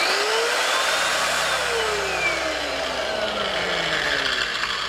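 Parkside PWBS 180 A1 wall and floor sander's 1050 W motor running free with no load, at its highest speed. Its whine rises over the first second, then slides slowly lower.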